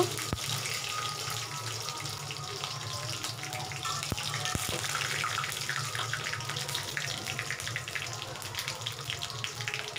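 Curry leaves, green chillies and black mustard seeds sizzling and crackling in hot oil in an aluminium kadai as a steel spoon stirs them. Frying tempering (tadka), with the crackling thickest in the middle.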